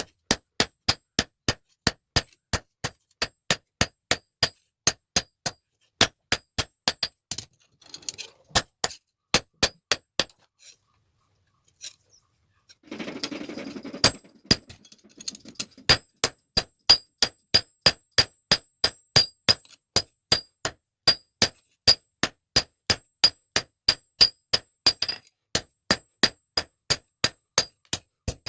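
Hand hammer striking hot steel on an anvil in a steady rhythm, about three ringing blows a second, while a pair of blacksmith's tongs is forged. The hammering pauses briefly midway, with a short burst of rushing noise, then resumes.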